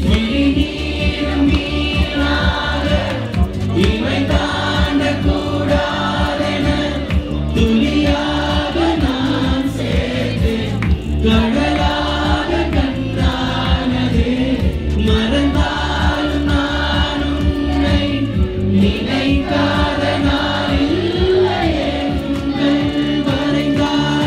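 Live music: a male singer performing at a microphone to his own keyboard accompaniment, with a steady beat.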